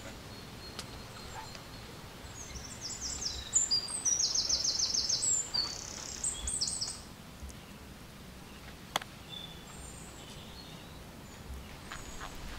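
A small bird singing a quick run of high, rapidly repeated chirps for about four seconds, starting a couple of seconds in, over a steady background hiss. A single sharp click comes about two-thirds of the way through.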